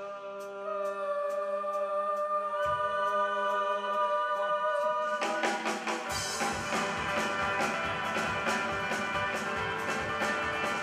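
A live band with accordion, keyboard, acoustic guitar, double bass and drum kit. It plays soft held chords with light ticking for about five seconds, then the full band with drums comes in about six seconds in.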